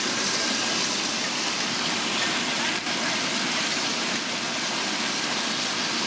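Bubble-type vegetable washing machine running: water in its stainless-steel tank churning and bubbling with a steady rushing noise as vegetables tumble through it.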